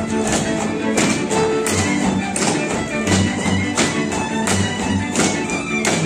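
Hungarian folk dance music on fiddle and bass, with sharp beats at a steady pace of about one every two-thirds of a second.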